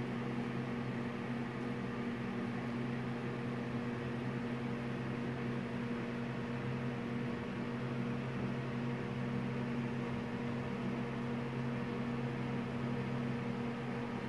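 Steady low mechanical hum over a light hiss, unchanging, like a fan or small motor running; the freely spinning brass sprinkler adds no distinct sound of its own.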